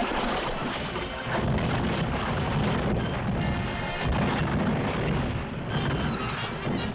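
Cartoon music score over a heavy, continuous rumbling crash of a suspension bridge being wrenched and collapsing.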